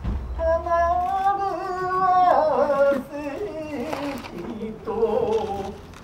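A kyogen actor's wordless, drawn-out cries in stylized stage voice. One held, wavering cry lasts about two seconds and falls away, then shorter pitched cries follow.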